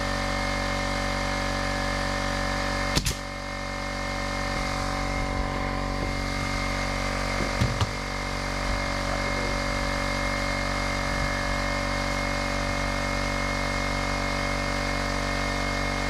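An air compressor runs with a steady hum. A pneumatic nail gun fires once with a sharp crack about three seconds in, and lumber knocks a couple of times near the eight-second mark.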